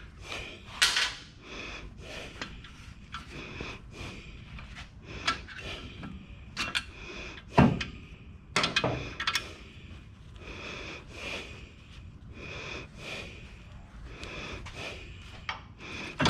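Scattered knocks and clatter of tools and front brake parts being handled while a caliper and rotor are taken off, with louder knocks about a second in and again around eight to nine seconds.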